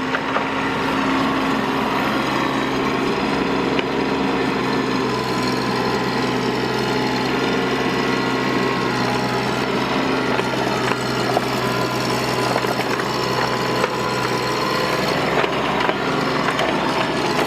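Bobcat mini excavator engine running steadily at working speed while the machine is driven, with a few faint knocks.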